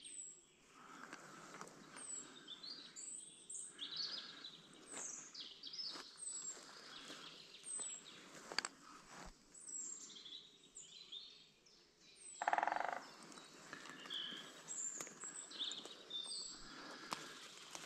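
Wild songbirds singing, with many short high chirps and warbled phrases throughout. About twelve and a half seconds in there is a louder, short, harsh sound.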